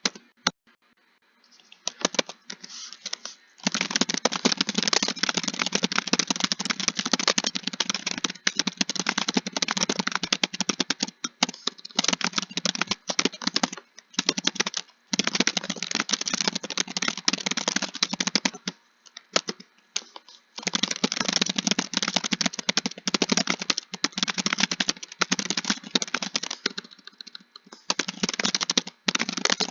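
Typing on a computer keyboard: a few scattered keystrokes for the first few seconds, then fast, steady key clicking in long runs broken by short pauses, the longest about 19 seconds in.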